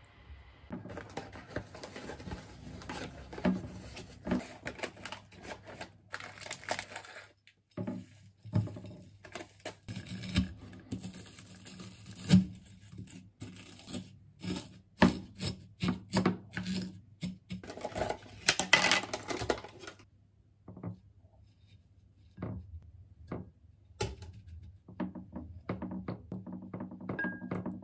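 Wooden spoon scraping and clinking against a glass food container while crushed Weetabix is stirred, then yogurt is spooned in: a long run of short scrapes and taps, with a quieter stretch a little after two-thirds through.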